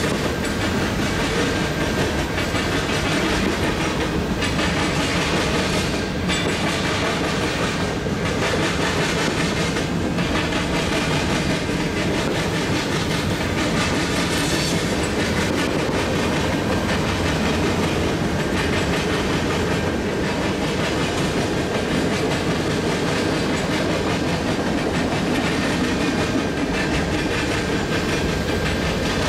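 A freight train's cars rolling past: a steady noise of steel wheels running on rail, with a faint regular clack about every two seconds as wheel sets pass.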